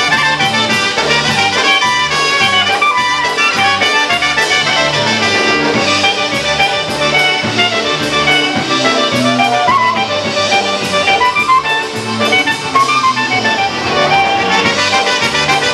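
Polka band playing live: clarinet, accordion and brass over a steady bouncing bass beat.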